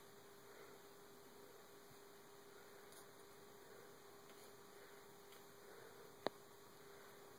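Near silence: a faint steady hum, with one sharp click about six seconds in.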